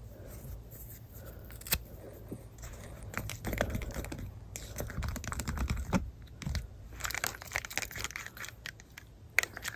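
A plastic stir stick scraping and clicking against a clear plastic cup as thick hand soap with small cardboard pieces is stirred: a busy run of irregular scratchy ticks, with one sharper click about a second and a half in.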